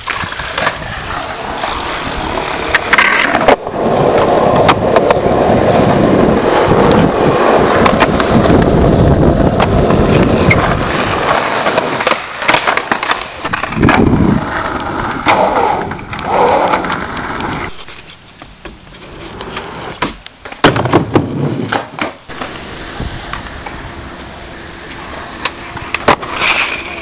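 Skateboard wheels rolling over rough pavement, with the sharp clacks and slaps of the board hitting the ground during tricks and landings.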